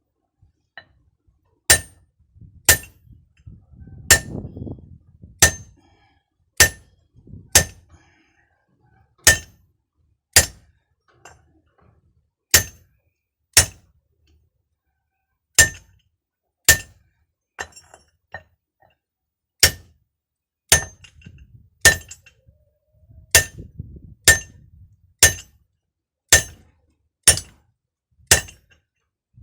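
Hammer striking metal in a steady series of sharp blows, about one a second, each with a short metallic ring.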